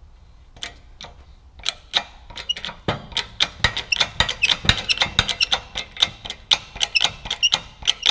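A workshop press forces a new front wheel bearing into a VW Golf Mk1 hub carrier. A run of sharp metallic clicks and short high squeaks, several a second, comes as the press is worked and the bearing is driven in.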